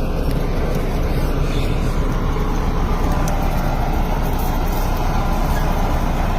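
Tractor-driven wheat thresher running: a loud, steady machine rumble of engine and threshing drum, with no pauses.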